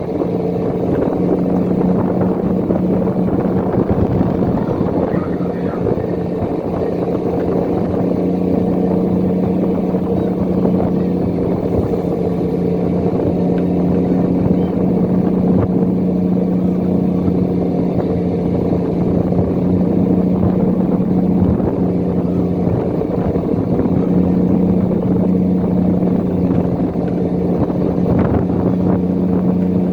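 Fishing boat's engine running steadily at a constant speed, with an even, unchanging drone.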